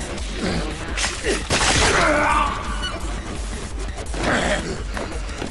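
Fight-scene sound effects: a run of crashing, clashing impacts, with short vocal sounds such as grunts among them.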